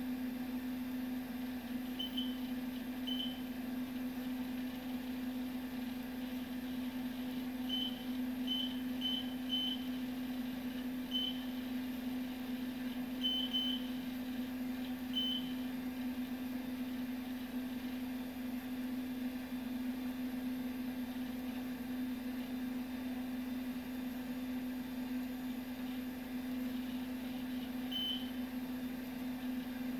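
Data General MV/3200 minicomputer running with a steady hum, while its console terminal gives about a dozen short, high beeps, mostly in the first half and once near the end, as boot-time system messages print on the screen.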